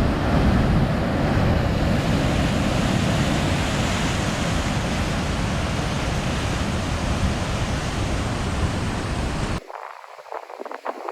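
Heavy ocean surf rushing, with wind buffeting the microphone; the roar drops away abruptly near the end.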